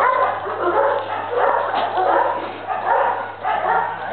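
Dogs yipping and whining, many short calls overlapping and gliding up and down in pitch.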